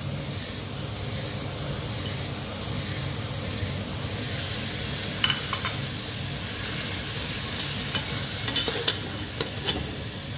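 Mutton pieces frying in ghee in a steel pot, sizzling steadily. A slotted spoon stirs the meat, with a few sharp scrapes and knocks against the pot about halfway through and a cluster of them near the end.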